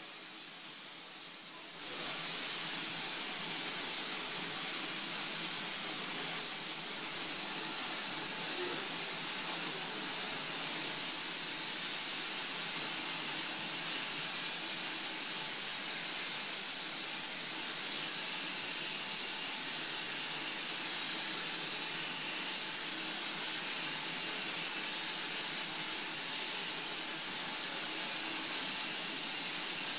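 Compressed-air spray gun hissing steadily as it sprays water-based silver basecoat onto an alloy wheel. A fainter hiss steps up to full level about two seconds in.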